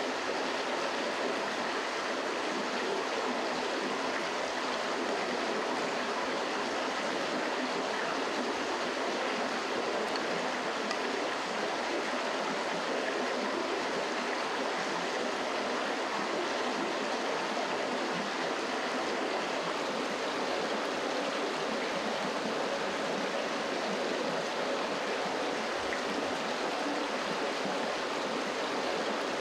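Steady rush of a creek flowing over rocks.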